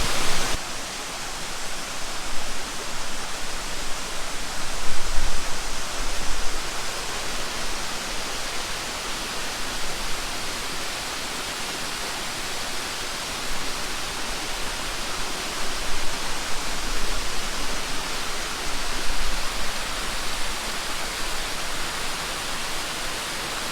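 Waterfall, a steady rushing of falling water with mild swells in loudness.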